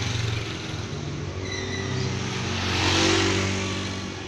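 Aerobatic plane flying past overhead: a steady engine sound with a rushing noise that swells to its loudest about three seconds in, then fades.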